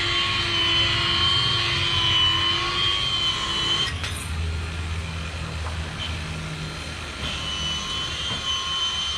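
Steady mechanical hum with a high whine running through it, from machinery or an engine. A single click comes about four seconds in, followed by a deeper rumble for about three seconds.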